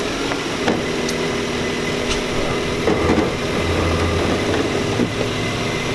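A steady mechanical hum from a running motor, with a few light knocks and clicks as the plastic front bumper is pushed into place.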